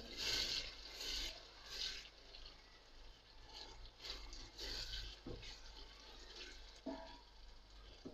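A spatula stirring softened tomatoes and fried onions in hot oil in a steel pot: soft swishing strokes, three in quick succession and then three more a couple of seconds later, over a faint sizzle.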